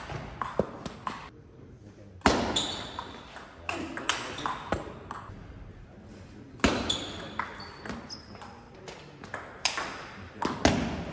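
Table tennis rally: the celluloid-type ball clicks sharply off the bats and the table in quick runs, echoing in a large sports hall. Three much louder sharp sounds ring out, about two seconds in, near the middle, and near the end.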